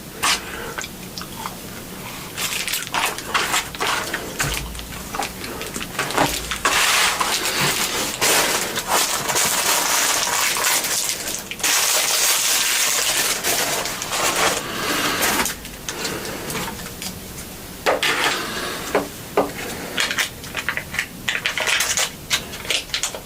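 Takeout food and packaging handled close to the microphone: repeated crinkling, rustling and sharp clicks of paper, cardboard containers and sauce cups.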